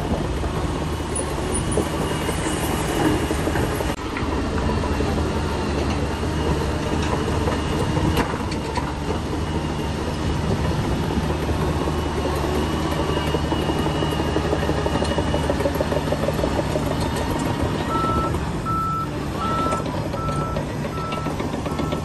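Heavy earthmoving machinery's diesel engine running steadily. Near the end a reversing alarm starts beeping evenly, about two beeps a second.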